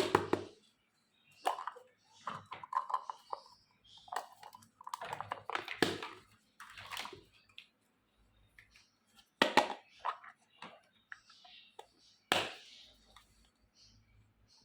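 Small plastic toy kitchen pieces being handled, tapped and set down: irregular clicks and knocks with brief rustling between them.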